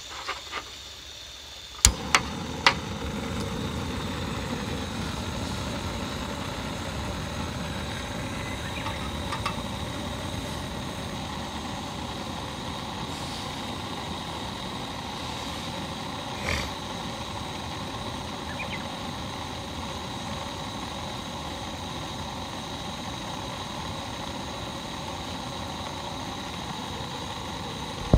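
Single-burner gas canister stove lit with a few clicks of its igniter about two seconds in, then its burner running with a steady rushing hiss under a kettle.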